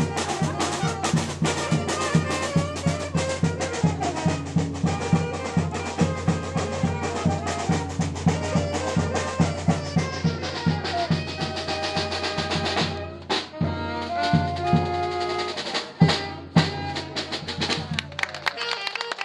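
Small street band of alto saxophones, a bass drum and a snare drum playing an upbeat dance tune over a steady drum beat. The sound changes abruptly about two-thirds of the way through, with a brief drop.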